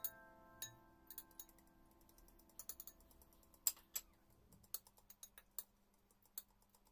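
Faint, irregular clicks and taps from mixing batter by hand in a glass bowl, under the tail of a background-music chord that fades out over the first few seconds.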